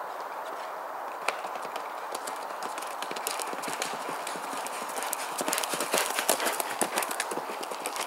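Hoofbeats of a horse cantering on a dirt cross-country track, growing louder as it comes past and loudest about six seconds in.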